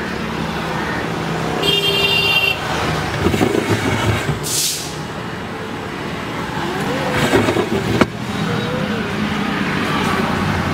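Road traffic running steadily, with a short high-pitched horn sounding about two seconds in and a brief hiss about four and a half seconds in.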